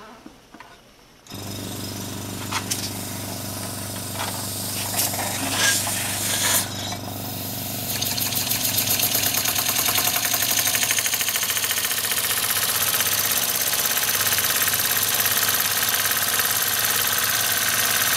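Small Simair electric air compressor switching on about a second in and running with a steady hum, with a few sharp clicks over the next few seconds. From about eight seconds in, a toy stationary steam engine running on the compressor's air joins in, its cylinder exhausting in a rapid, even beat as the flywheel spins.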